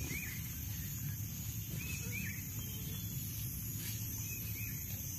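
Forest insects droning steadily at a high pitch, with a bird repeating a short call three times, about every two seconds.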